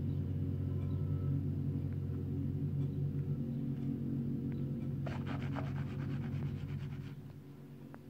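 Diesel engines of road-works machinery, a small ride-on road roller and a backhoe loader, running with a steady low hum. From about five seconds in, a fast rattle of around ten strokes a second joins for two seconds. The engine sound then drops down near the end.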